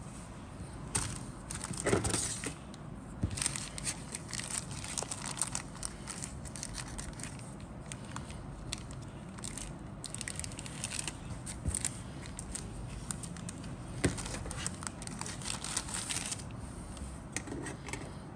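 Thin clear plastic bag crinkling and tearing as a hobby knife slits it open and hands work the clear plastic sprue out of it, in uneven bursts of crackle, loudest about two seconds in.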